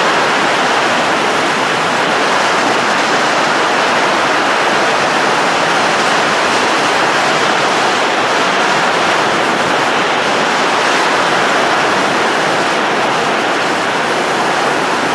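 A steady, even rushing of blown air, like a strong wind or air blast, holding at one level without gusts or changes.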